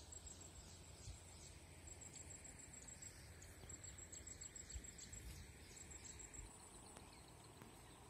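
Faint riverside ambience: a steady, pulsing high-pitched insect trill with a few short, falling bird chirps over a low rumble.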